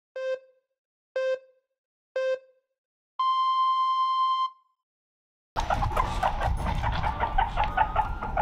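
Countdown-style electronic beeps: three short, lower beeps about a second apart, then one long, higher beep. After a short silence, a noisy low rumble with many short high squeaks and clicks starts about five and a half seconds in.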